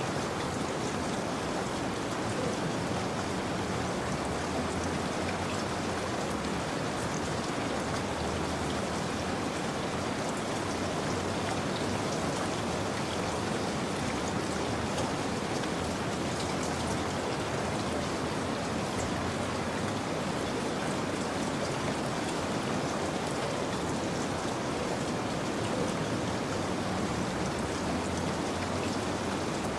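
Steady rain falling, with drops pattering on a surface, an even and unchanging hiss.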